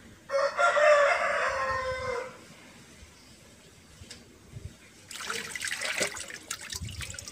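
A rooster crows once, a loud call of about two seconds that falls slightly at its end. Near the end comes water splashing in a plastic tub as a chicken is lifted out of a lice-treatment dip.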